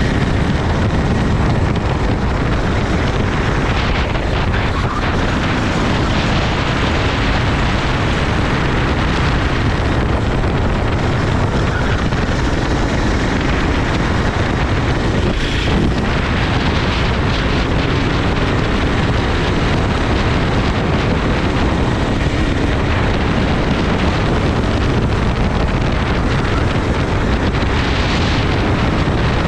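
Racing kart engine running at speed, with heavy wind buffeting on the microphone.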